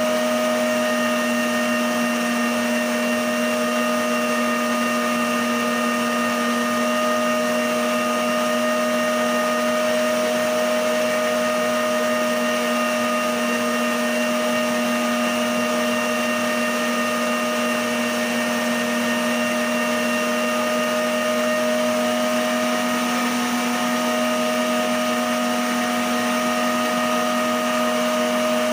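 Emsan electric stand mixer running at high speed, its whisk beating egg yolks and sugar into a foam: a steady motor whine that holds one pitch throughout.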